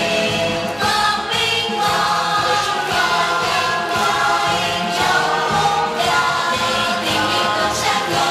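A youth school choir singing in several-part harmony, with held notes that change every half-second or so.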